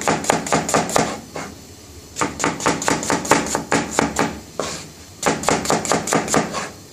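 Chef's knife slicing onions on a cutting board: quick knocks of the blade on the board, about six a second. They come in three runs, broken by two short pauses.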